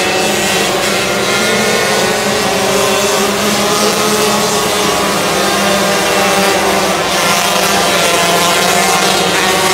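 Several 125cc micro sprint race cars running together on a dirt oval, a steady loud mix of engine tones whose pitches waver slightly as the cars circle.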